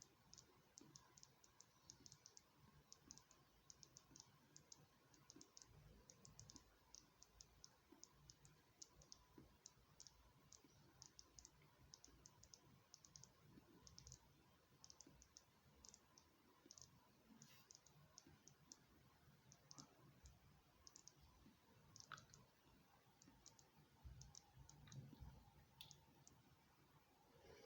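Near silence with a faint, irregular crackle of tiny ticks, several a second: gas bubbles popping in a lead-acid battery's electrolyte as it gasses on charge.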